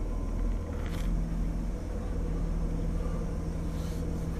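Car engine idling with a steady low hum, heard from inside the vehicle, with a light rustle now and then.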